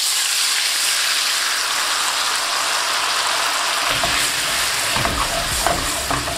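Leftover stock poured into a hot frying pan of melted butter, sizzling hard with a loud, even hiss as it hits the pan and boils up. About four seconds in, a low rumble joins the hiss.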